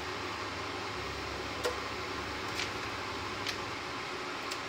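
A fan running steadily, an even hum and hiss, with a few faint light ticks about a second apart.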